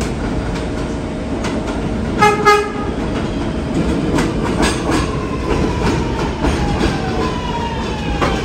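Kawasaki R211A subway train running on the rails, sounding two short horn toots about two seconds in, with wheel clicks over the rumble. From about halfway its motor whine falls slowly in pitch, a sign the train is slowing down.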